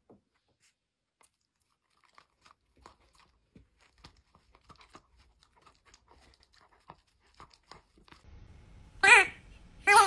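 Faint, scattered crunching and nibbling clicks as a dachshund bites at a soft round object held to its mouth. Near the end, a cat gives two loud, short meows about a second apart.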